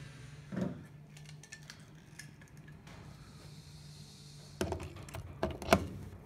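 Small clicks and taps of a blind rivet being handled and fitted into a rocket launcher against the rocket tubes, with a cluster of sharper knocks near the end, over a faint steady low hum.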